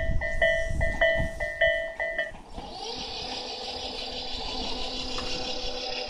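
Japanese level crossing warning bell ringing a two-tone electronic clang a little under twice a second, while the departing Tobu 8000 series train's wheels rumble away. The bell stops about two and a half seconds in, and a steady high whine with several held tones follows.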